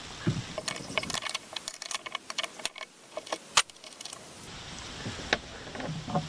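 Small metal parts clicking and clinking as a throttle actuator is worked loose from its galvanized sheet-metal mounting plate: a quick run of light clicks over the first few seconds, then a few sharper single clicks.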